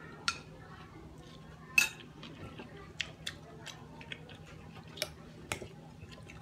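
Metal spoon clinking and scraping against a glass bowl while food is scooped up: about eight sharp clinks, the loudest about two seconds in with a short ring.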